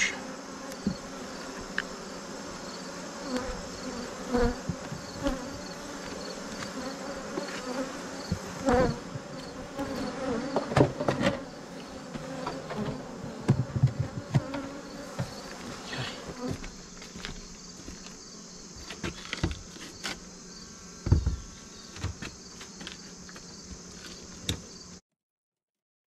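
Honey bees buzzing steadily around an opened hive, with scattered wooden knocks and scrapes as the frames and boxes are handled with a hive tool while the hive is closed up. The sound cuts off suddenly near the end.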